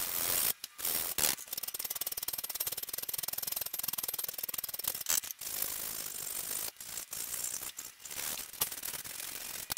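Hand file rasping back and forth on a metal cutlass guard piece clamped in a vise, in a run of quick strokes broken by a few brief pauses.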